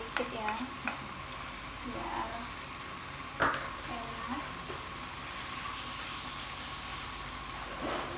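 Vegetables stir-frying in a pan with a steady sizzling hiss, with one sharp knock of the utensil on the pan about three and a half seconds in.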